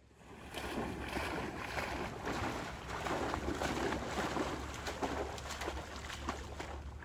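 A dog bounding through shallow flood water, with a continuous run of splashing that starts about half a second in.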